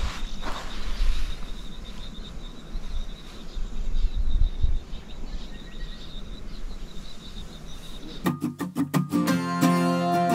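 Outdoor noise with a low rumble like wind on the microphone and a thin, steady high-pitched tone, with no speech. About eight seconds in it cuts abruptly to background music of plucked acoustic guitar in a country or bluegrass style.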